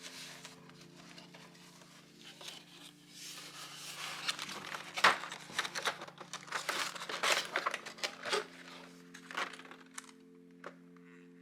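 Irregular crinkling and rustling, like packaging being handled, over soft background music with sustained notes. The crinkling thickens about three seconds in and dies away near the end.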